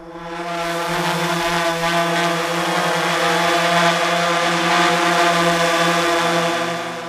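Background music fading in: a sustained synthesizer chord swells up over about a second under an airy rushing layer, and the harmony shifts near the end.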